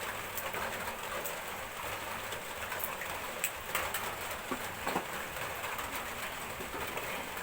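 Steady rain falling, an even hiss of rainfall, with a few scattered sharp clicks.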